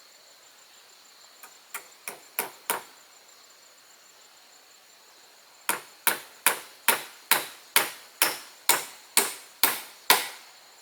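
A tool striking wood: a few light taps, then about a dozen evenly spaced, harder blows at a little over two a second.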